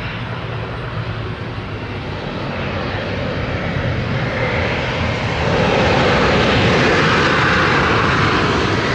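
The twin turbofan engines of an Embraer regional jet as it rolls along the runway past the camera, the engine noise growing louder as it nears and loudest in the second half.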